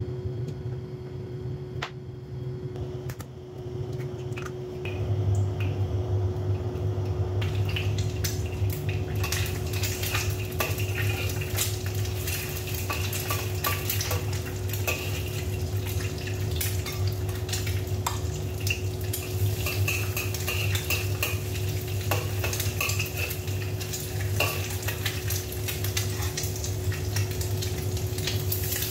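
An egg frying in a wok, sizzling, with a metal spatula scraping and clicking against the wok. A steady low hum runs underneath. The sizzling starts a few seconds in.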